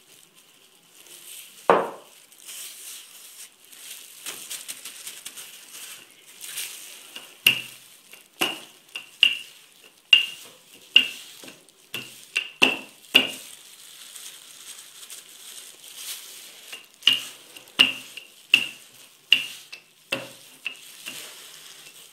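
Wooden rolling pin rolling out dough on a plastic cutting board. It knocks sharply against the board at about one stroke a second, in two runs, with a single knock about two seconds in.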